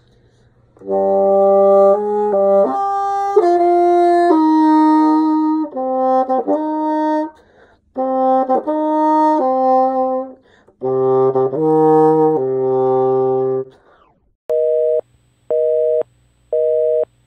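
Bassoon played in several phrases of changing notes, separated by short breaks. Near the end it gives way to short, evenly spaced notes of one pitch, about one a second.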